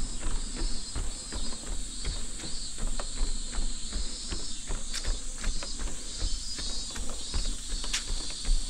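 A runner's footsteps on a trail, about two to three a second, with cicadas calling in repeated swelling phrases high above.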